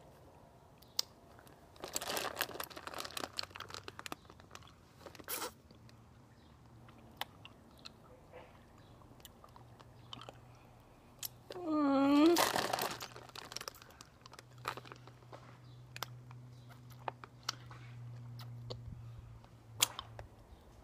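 Warheads sour hard candies being unwrapped and eaten: wrapper crinkling in two bursts about ten seconds apart, with mouth clicks and chewing between. A short hummed 'mm' that dips and rises in pitch comes just before the second burst.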